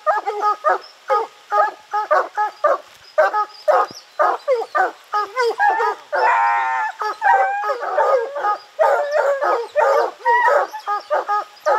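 A pack of bear hounds baying up a tree in quick, overlapping barks, with one longer, rapidly broken call about six seconds in: the tree bark that signals a bear treed above them.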